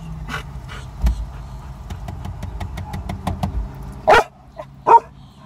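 A dog in a car barks twice, about four and five seconds in. The second bark is the louder, over a steady low car hum, with scattered light ticks before the barks.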